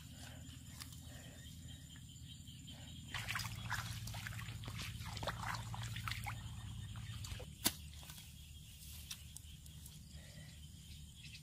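Wet mud squelching and shallow water sloshing as hands dig into a muddy bank, with small splashes and drips, busiest from about three to seven seconds in, and one sharp click shortly after.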